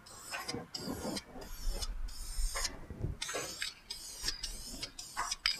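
Aerosol can of Dupli-Color wheel coating hissing in a series of short spray bursts, some about a second long, broken by brief pauses, as a light coat of paint goes onto an alloy wheel.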